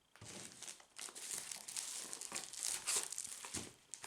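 Packaging rustling and crinkling as a puzzle is unwrapped by hand, with a soft thump near the end.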